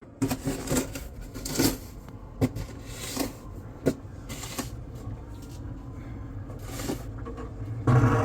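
Footsteps crunching in deep snow, a series of sharp crunches roughly every half-second to second, thinning out after about five seconds. Near the end a vehicle's low rumble comes in.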